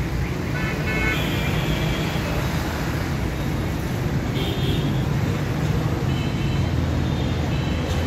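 Steady traffic noise from a busy city main road, motor vehicles running and passing. Brief high-pitched tones sound about a second in and again around the middle.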